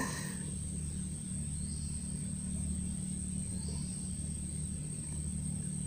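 Steady low rumble with a thin, steady high-pitched tone above it, and no distinct sound standing out.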